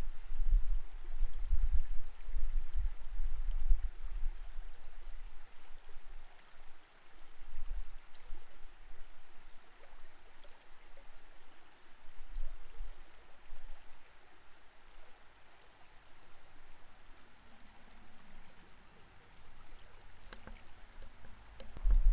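Creek water heard underwater: a steady rush of flowing water with low rumbling thuds, strongest in the first few seconds and dying away later on.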